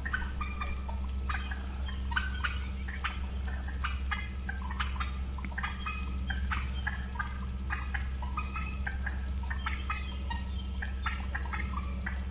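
Birds calling with many short, rapid, overlapping chirps and squawks, over a steady low hum.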